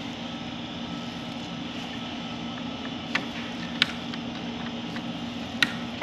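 Three sharp clicks of a screwdriver working the wiring terminal block of a mini-split indoor unit, while the condensate pump's float switch is being bypassed, over a steady low mechanical hum.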